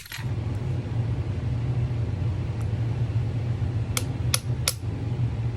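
Three light metallic clicks in quick succession near the end, from the padlock and its key being handled, over a steady low hum.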